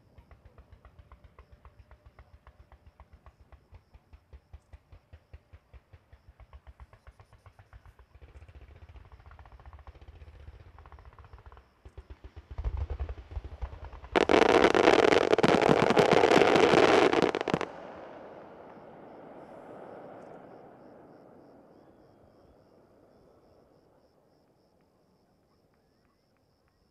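Fireworks display: a rapid string of evenly spaced firecracker bangs, several a second. About twelve seconds in it breaks into a dense, very loud barrage of explosions lasting some five seconds, the finale of the castillo, then a rumble fades away.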